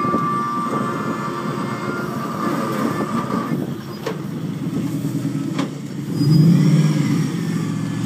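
Rock-crawler buggy's engine running as it crawls down over boulders, with a steady high-pitched squeal for the first few seconds and two sharp clicks. The engine grows louder under load near the end.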